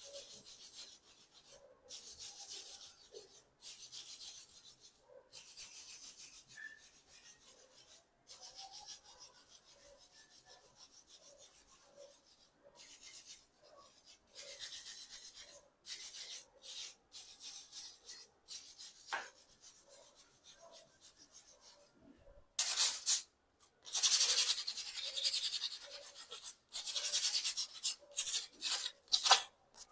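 Hand-scrubbing strokes on a bicycle part, a rough abrasive rubbing repeated in short uneven bursts, growing louder and faster over the last several seconds.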